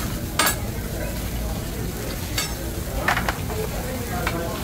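Food sizzling on a hot hibachi griddle, with several sharp metal clinks and taps of cooking utensils against the griddle; the strongest comes about half a second in.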